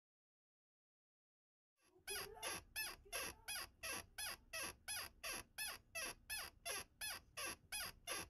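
Silence, then from about two seconds in a rapid, evenly spaced run of short high-pitched squeaks, about three a second, each bending down in pitch.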